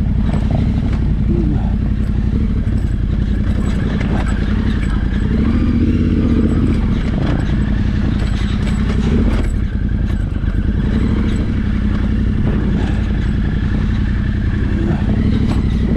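Yamaha Ténéré 700's parallel-twin engine running at low, steady revs while riding a rough track, the revs rising and falling a little with the throttle, with scattered knocks and rattles from the bike over the rocky ground.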